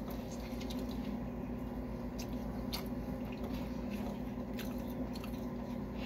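A man chewing a large mouthful of homemade hamburger, with a few faint wet mouth clicks.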